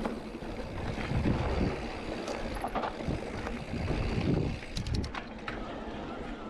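Specialized Levo SL mountain bike rolling along a dirt singletrack, with wind buffeting the microphone in two gusts and a quick run of sharp clicks and rattles from the bike about five seconds in.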